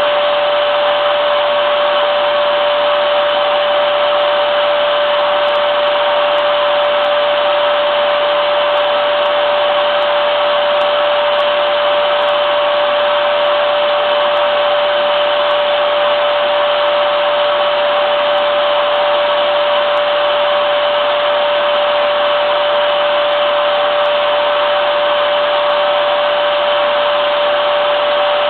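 Vacuum cleaner running steadily: a constant rush of air with one clear, unchanging tone in it.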